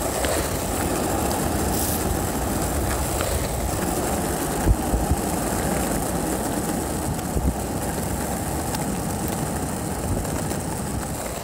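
Penny board wheels rolling over asphalt: a steady, coarse rumble, with a few sharper thumps near the middle as the board runs over bumps in the road.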